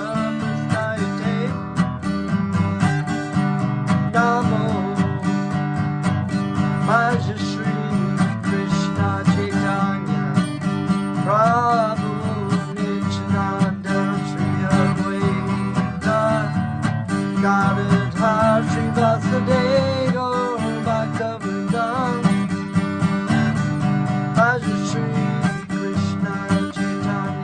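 Acoustic guitar strummed steadily, with a man's voice singing a devotional chant of Krishna's names over it.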